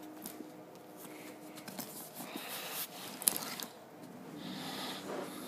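A canvas-and-leather briefcase being handled and unpacked: fabric rustling and soft knocks, with a sharper click a little over three seconds in.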